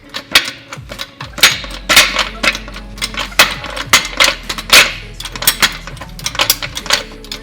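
Metal hand tools at work on the car's bolts: a rapid, irregular run of sharp metallic clicks and clanks, some much louder than others, over a faint steady hum.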